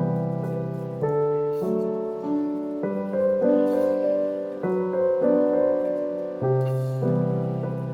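Background piano music: soft, slow chords and notes changing about once a second.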